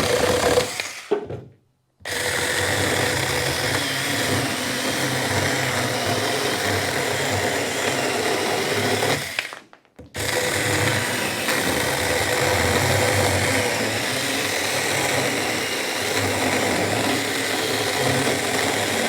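Saker mini cordless electric chainsaw running and cutting small limbs off dry maple, a steady motor whine with chain noise. It stops twice, briefly, about a second and a half in and again about ten seconds in, then runs again.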